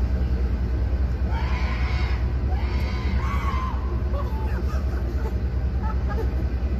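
A loud, steady low rumble with a fast flutter. Over it, a voice shouts or yells with rising and falling pitch in the first half, with fainter calls later.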